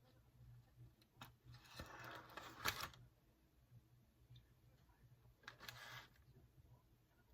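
Quiet desk-handling sounds: a few light clicks and two brief rustles, the first ending in a sharp click, over a low steady hum.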